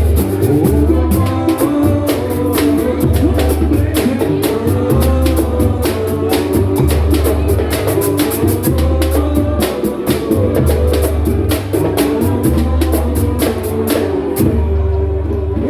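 Samba-pagode band playing: dense, fast percussion over a pulsing bass line, with singing. The high, bright percussion drops out near the end.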